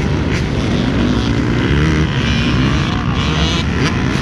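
Several dirt bike engines running together, idling with revs that rise and fall now and then.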